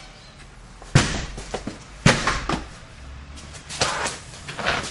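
A handful of sharp knocks and thumps on a door, irregularly spaced, the loudest about one and two seconds in.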